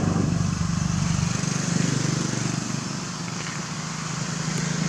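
A steady motor hum, low and even, under a constant hiss; it dips slightly about three seconds in and picks up again near the end.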